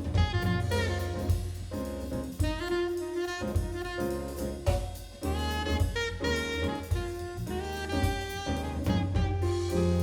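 Jazz music with a horn melody over bass and drum kit, played through DALI bookshelf loudspeakers and picked up by microphones in the room.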